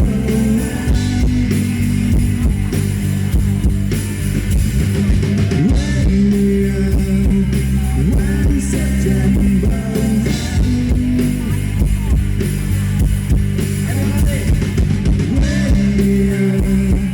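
Live rock band playing an instrumental passage, guitar and drum kit over steady low bass notes.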